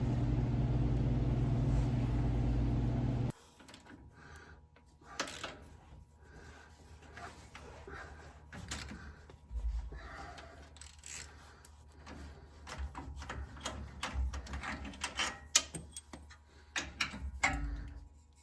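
A steady low hum cuts off abruptly about three seconds in. After it come scattered light metallic clicks, clinks and knocks of hand tools and parts, made while the starter is being unbolted from a small-block Chevy engine.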